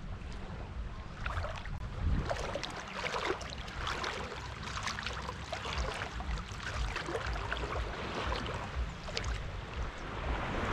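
Shallow sea water lapping and sloshing right against a camera held at the waterline, with many small, irregular splashes and gurgles.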